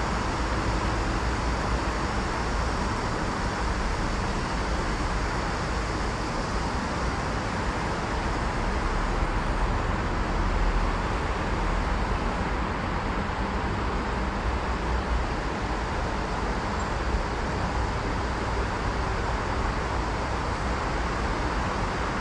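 Steady road traffic noise: an even rushing hum of many vehicles with no single one standing out.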